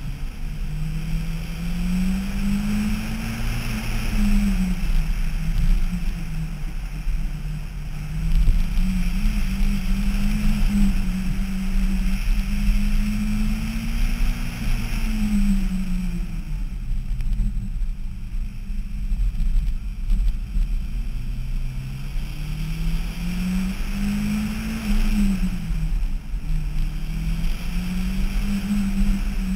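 Turbocharged 1985 Toyota Celica GT-S engine under hard driving on an autocross course, its revs climbing and falling again and again as the car accelerates between cones and slows for turns, over a steady low rumble. About halfway through, the revs drop and the engine goes quieter for several seconds before pulling hard again.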